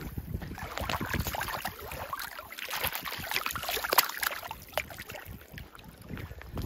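A salmon thrashing in shallow water over river stones as it is released by hand: a run of irregular splashes and slaps, the loudest about four seconds in.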